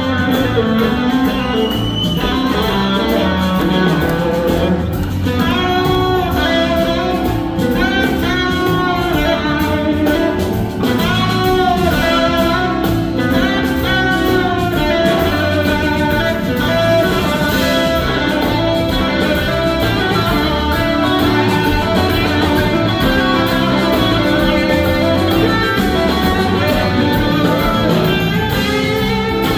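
Live blues-rock band playing loudly, led by an electric guitar solo with long gliding, bending notes over drums and the rest of the band.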